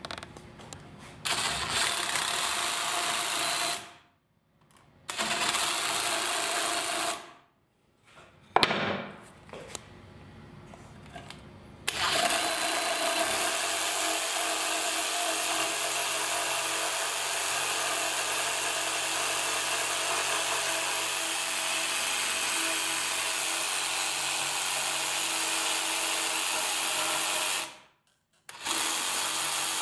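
DeWalt DCS369 cordless one-handed reciprocating saw cutting a wooden 1x2 board clamped in a bench vise. It runs in a few short starts at first, then in one long steady cut from about twelve seconds in, stops briefly near the end, and starts again.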